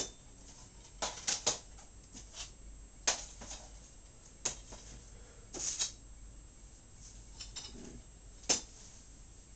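Scattered light clicks and knocks, about half a dozen spread over the stretch, with a faint steady low hum beneath.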